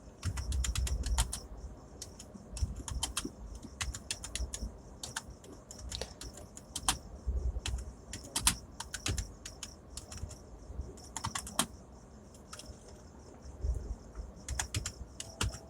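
Typing on a Zebronics ZEB-KM2100 membrane USB keyboard: irregular runs of key clicks with short pauses, easing off for a moment about twelve seconds in.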